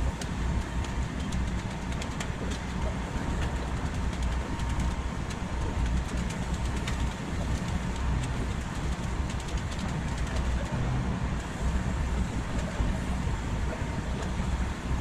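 Sped-up track-construction site noise: a steady low rumble with many quick clicks and clanks.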